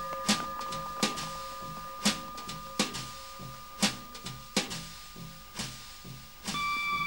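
Background music: drum hits about once a second over held, sustained tones, with a new chord coming in near the end.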